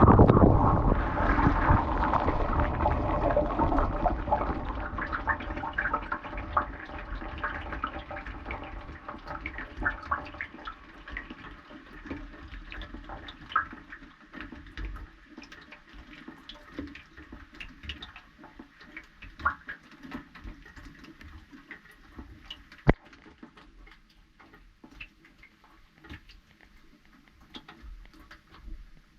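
Water rushing inside a dishwasher tub, heard from inside it, dying away over the first ten seconds or so. Scattered drips and small ticks follow as the water runs off.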